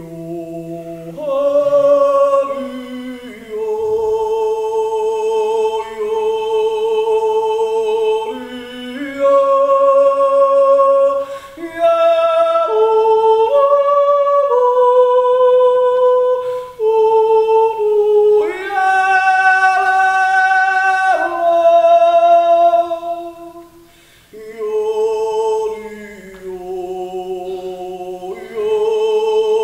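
Solo male yodeler singing unaccompanied, holding long notes with vibrato and leaping between low and high pitches, the yodel's break between chest and head voice, with short pauses for breath between phrases.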